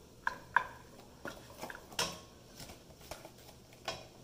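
A metal spoon and a spatula clicking and scraping against a nonstick wok as egg and sausage are spread over rice paper: a handful of light, irregular taps.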